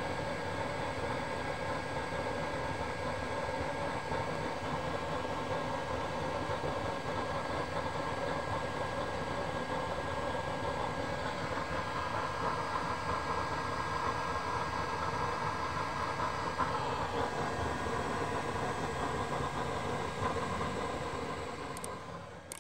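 Homemade used-oil burner running under a pot: a steady roar of flame and air with a faint high steady whine, fading out near the end.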